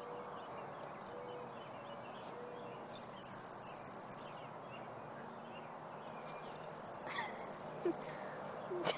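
Chipmunk giving two rapid, high-pitched trills of chips, each about a second long, the first about three seconds in and the second a little after six seconds. It is a chipmunk's alarm call, easily taken for a cricket chirping.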